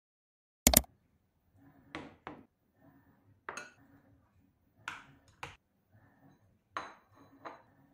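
Kitchenware being handled: a sharp double click about a second in, then light knocks and clinks in loose pairs every second or so, with faint handling noise between.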